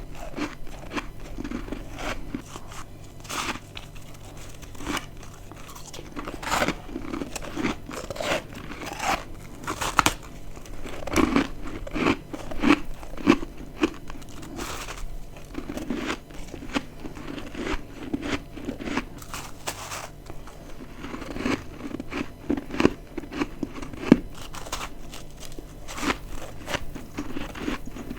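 Close-miked biting and chewing of dry, crispy freezer-frost chunks: a long run of sharp, irregular crunches, some much louder bites among steady chewing.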